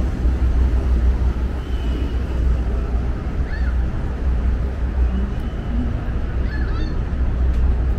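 Steady low rumble with a few faint short high calls over it, about three and a half and seven seconds in.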